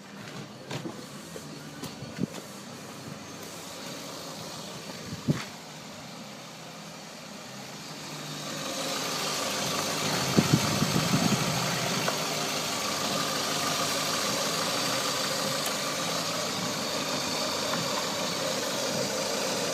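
A Citroen Xsara Picasso's 1.6-litre petrol engine idling steadily, heard first faintly from inside the cabin, then louder and closer from the open engine bay from about eight seconds in. A few knocks and rustles from the camera being handled.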